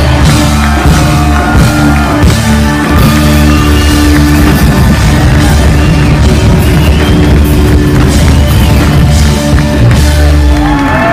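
Live rock band playing loud, heard from the audience: saxophone, electric guitar and drum kit over heavy bass. The music stops near the end.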